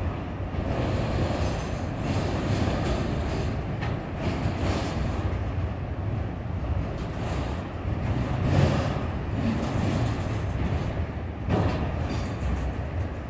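Freight train of autorack cars rolling past close by: a steady rumble and clatter of steel wheels on the rails, with a few faint, brief high squeals.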